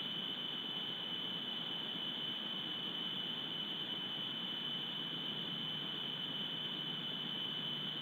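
A constant high-pitched whine over steady hiss, unchanging throughout: electronic noise from a wildlife camera's microphone rather than an animal.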